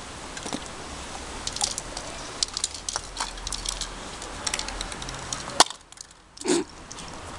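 Aerosol spray paint cans being handled and used, giving scattered short, high-pitched rattles and hisses over a low background hum. A single sharp click comes about five and a half seconds in.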